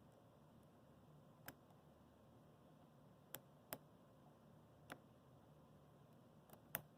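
Lock picking: faint, irregularly spaced metal clicks of a hook pick and tension wrench working the pins of a Master Lock No. 150 padlock. About six small clicks, the sharpest near the end, over a quiet low hum.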